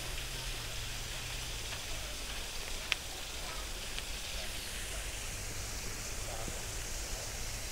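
Steady outdoor background noise with a low rumble underneath, and one sharp click about three seconds in.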